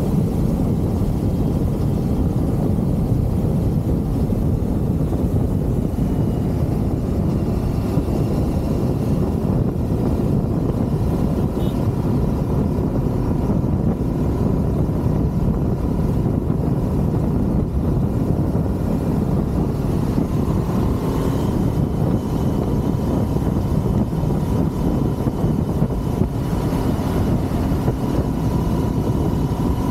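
Motorcycle running at a steady speed while riding, with wind rushing over the microphone. A faint steady whine comes in partway through.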